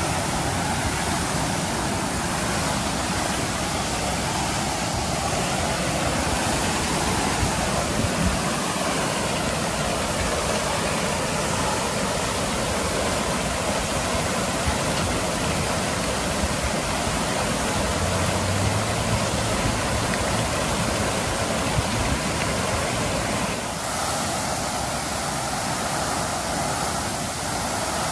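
Water gushing uncontrolled from a fire hydrant knocked off by a vehicle: a loud, steady rush of high-pressure spray shooting up and falling back onto the pavement.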